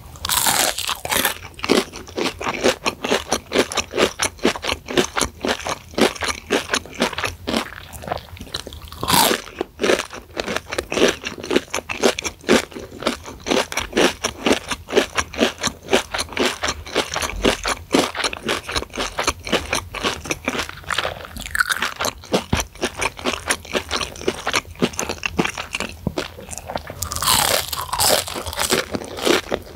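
Close-miked crunching and chewing of deep-fried breaded chicken sticks fried until crisp: rapid crisp crunches throughout, with louder bites into the coating near the start, about nine seconds in, and again near the end.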